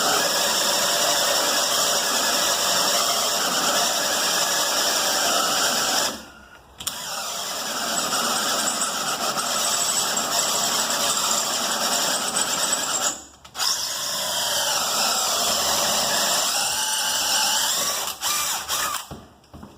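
Power drill turning a 2 1/8-inch hole saw, cutting the deadbolt bore through a door. It runs steadily, stops briefly twice (about six and thirteen seconds in), and stops again near the end.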